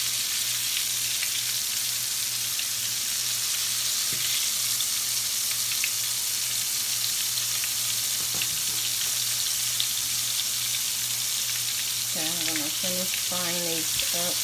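Battered shrimp deep-frying in hot oil in a cast-iron skillet: a steady sizzle with fine crackling.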